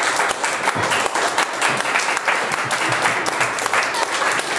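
Audience applauding, with the performers on stage clapping along: dense, steady clapping.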